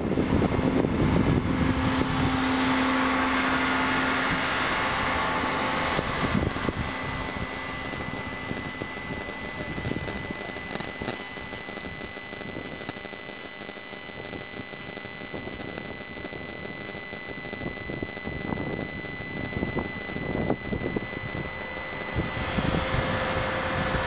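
Cherry picker running as its boom raises the basket. There is a steady high-pitched whine over a low rumble. The rumble is heaviest in the first couple of seconds and again near the end.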